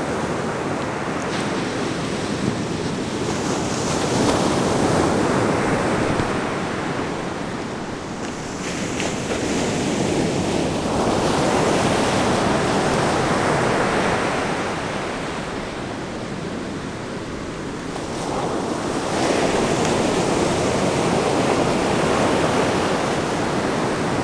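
Ocean surf breaking and washing up the beach: a steady rush that swells and falls back three times, each surge lasting several seconds.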